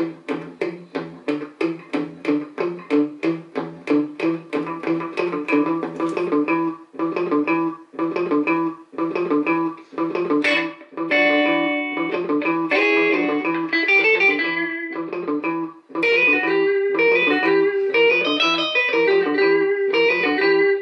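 Hollow-body electric guitar played through a freshly repaired Electra EP-401 digital delay. First comes an even run of repeated picked notes, about three a second, then a melodic line and chords with ringing notes.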